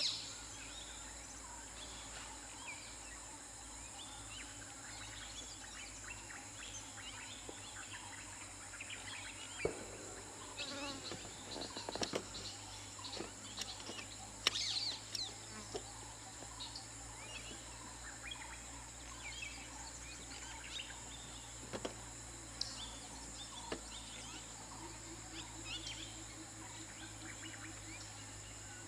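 Roadside forest ambience: a steady high insect drone with scattered bird chirps, and a few short knocks, mostly between about ten and fifteen seconds in.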